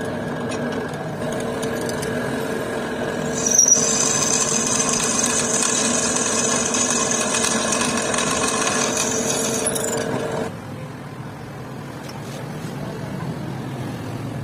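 Drill press motor running steadily while its twist drill bores into a cast metal handwheel, with a high metallic screech from about three and a half seconds in while the bit cuts. Both stop at about ten seconds, leaving a lower, quieter shop noise.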